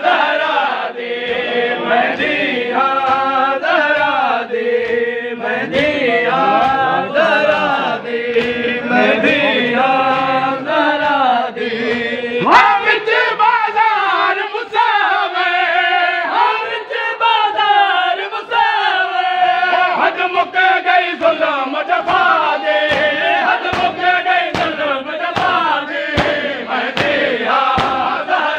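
A group of men chanting a Muharram noha (mourning lament) together, with the sharp thuds of open hands beating chests (matam) keeping time. The beating is most regular in the second half.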